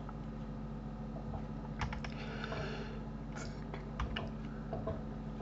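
Computer keyboard keys tapped a few times in quick, scattered clicks from about two seconds in, over a steady low hum.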